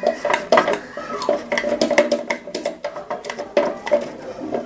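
Small plastic and metal parts of a motor-starter contactor clicking and rattling in the hands as the contactor is wiped clean with a cloth, a quick run of irregular clicks.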